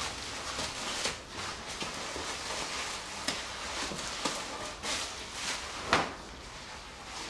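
A series of light knocks and clicks from handling work, the loudest about six seconds in.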